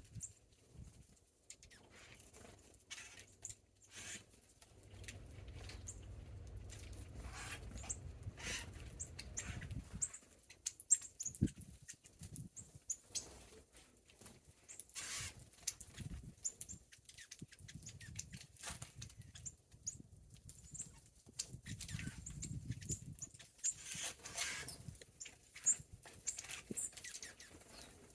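Small birds feeding close to the microphone: scattered pecking and scratching clicks with short, high chirps. A low rumble runs underneath for a few seconds in the first half.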